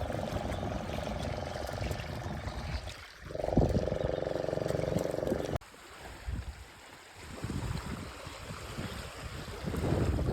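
Motorboat engine droning steadily, then cutting off abruptly about five and a half seconds in, leaving wind noise on the microphone.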